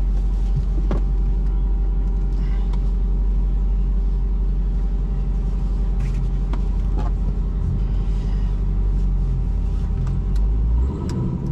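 Steady low drone of a car's engine and tyres heard from inside the cabin while driving.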